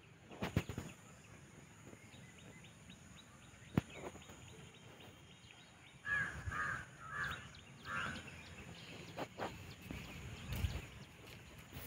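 A crow cawing four times in quick succession a little past halfway, over a faint background with a few soft knocks.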